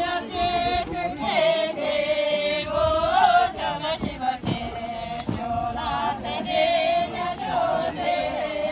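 A group of voices singing together in unison, mostly high voices holding long notes with wavering ornaments between them.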